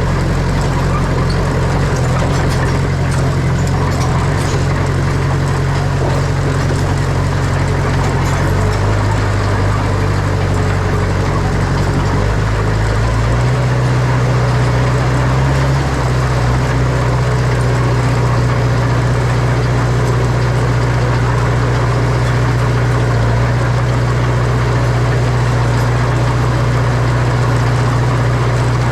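Heavy diesel engine of an earthmoving machine running steadily under load. Its pitch steps down and back up a few times in the first half, then holds steady.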